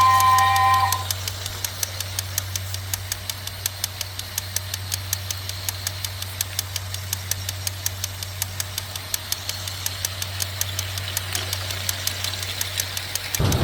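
Small 9 V DC motor of a homemade toy train running with a steady low hum and a regular click about five times a second.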